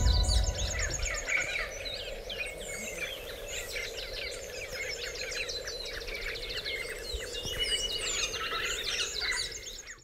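Forest birds: many small birds chirping and trilling over one another, some in quick repeated note series, over a steady faint hum.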